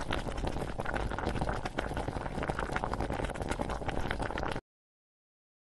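Pot boiling hard: a dense, steady bubbling crackle that cuts off suddenly about four and a half seconds in.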